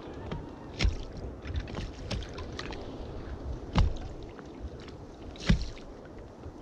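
Water slapping and rumbling against a small inflatable boat, with wind on the microphone, broken by three sharp knocks and a few lighter ticks from gear being handled in the boat.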